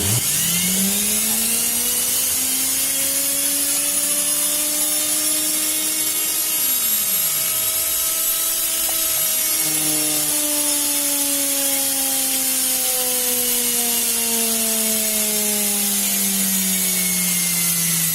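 LG front-load washing machine's brushed universal motor, powered straight from the mains through its jumpered carbon brushes, starting suddenly and spinning up within a second. It then runs at high speed with a steady whine and brush hiss, its pitch slowly sagging.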